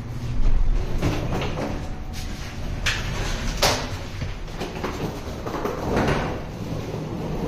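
Elevator's low hum stopping as the car arrives, then its doors sliding open, with two sharp clicks about three and three and a half seconds in.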